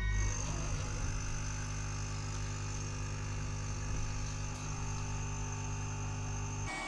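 Steady low machine hum with a thin high whine, like a small electric motor or fan running. Just before the end it changes abruptly to a hissier, more even noise.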